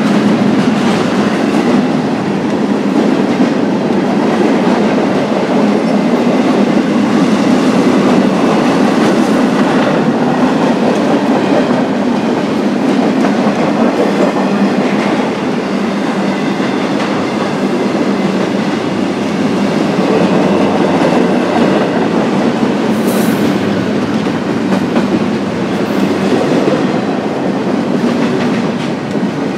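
A long BNSF freight train's cars rolling past at speed, giving a steady wheel-and-rail noise.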